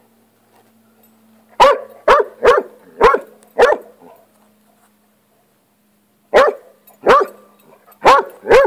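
Basset hound barking at a lizard: short sharp barks, five in quick succession and then, after a pause of a couple of seconds, four more.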